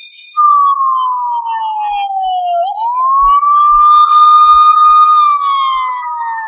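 Police siren wailing: a long slow fall in pitch, a quick rise about three seconds in to a held high note, then another slow fall near the end.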